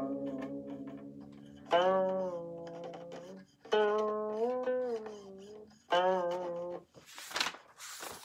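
Guqin (seven-string Chinese zither) played slowly: single plucked notes about every two seconds, each left to ring while the left hand slides along the string so the pitch bends and wavers. Near the end, the paper rustle of a page of the score being turned.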